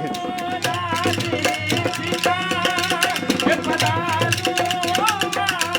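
Background music with a steady, fast percussive beat and a sustained melody line.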